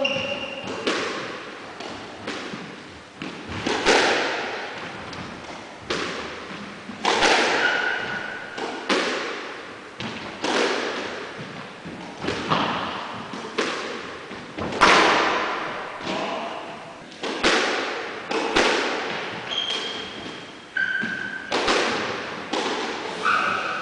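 Squash rally: the ball struck by rackets and hitting the court walls, sharp echoing thuds at roughly one a second, with a few short squeaks between them.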